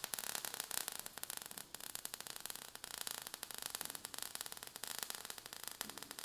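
Faint crackling static: a steady hiss made of rapid, irregular clicks.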